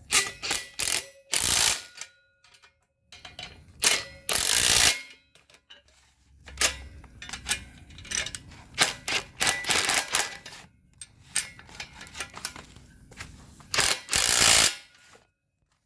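Hand ratchet with an 18 mm socket turning the M12 nuts and bolts that hold the tow bar sidearms, in repeated runs of ratcheting clicks with pauses between them.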